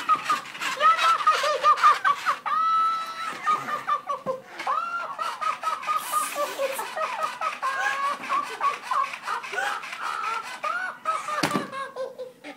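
Tickle Me Elmo Extreme and Cookie Monster toys laughing nonstop in high-pitched electronic voices through their small speakers. A single thud sounds near the end, as the Elmo toy drops flat onto the wooden floor.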